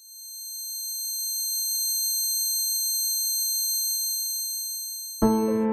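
A steady, high-pitched electronic ringing made of several pure tones stacked together. It swells in from silence and holds for about five seconds. A piano comes in suddenly near the end and cuts off the ringing.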